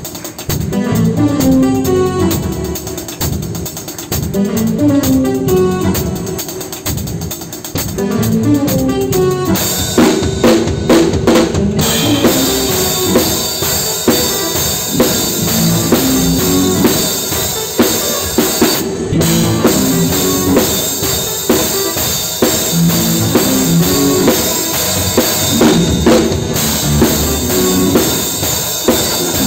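Live church band music played close to a drum kit, with keyboard accompaniment. About ten seconds in the drumming gets louder and fuller, with dense cymbal and snare hits over the steady beat.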